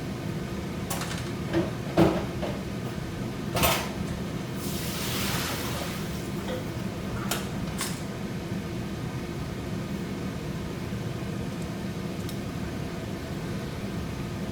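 Kitchen clatter over a steady low hum: a few short knocks and clicks, the loudest about two seconds in, and a brief hiss near the middle while vegetables steam in a covered pot.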